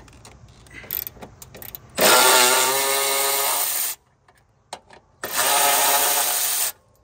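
Cordless electric ratchet whirring in two bursts of about two and one and a half seconds, its pitch climbing as each starts, as it backs out two bolts at the top of a radiator support. A few light clicks come before them as the socket is set on the bolt.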